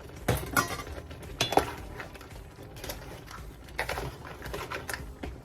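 A spoon clinking and knocking against cookware, about six sharp strikes, the loudest about one and a half seconds in.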